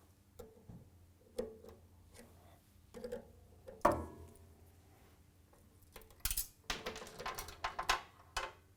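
Light metallic clicks and clinks of long-nose pliers working at the connecting link of a roller-chain coupling, with one sharper ringing clink about four seconds in and a quick cluster of clicks near the end.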